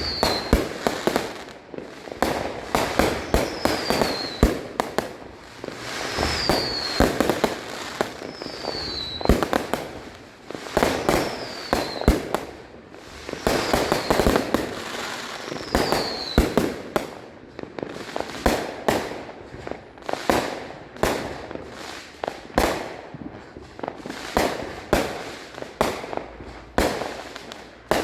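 Consumer fireworks going off in a steady, irregular barrage: many sharp bangs and crackles, some overlapping, with rolling rumbles between them. A faint short falling whistle recurs about every two to three seconds during the first half.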